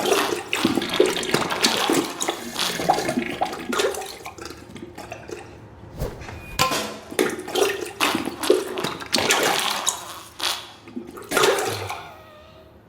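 Diarrhea sound effect: wet, sputtering squirts and splatters into toilet water, coming in irregular bursts and fading out near the end.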